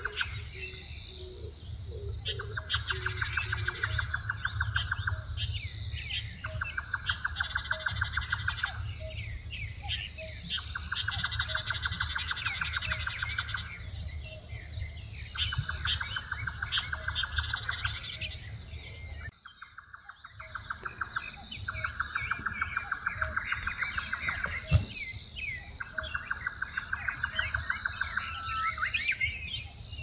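Woodland birdsong: a pulsed trill about two seconds long repeats every three to four seconds, among many quick high chirps from other birds, over a steady low rumble.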